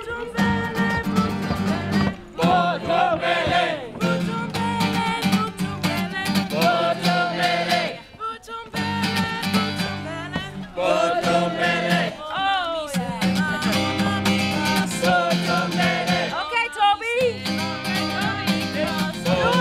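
Acoustic guitar and ukulele strummed in a steady, driving rhythm, with a group of voices singing along.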